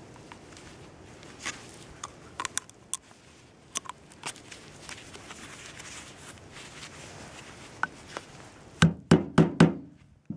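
Gloved hands handling a plastic shotgun hull with scattered light clicks and taps, then four quick, loud hammer blows near the end on a punch set in the hull, knocking the spent primer out.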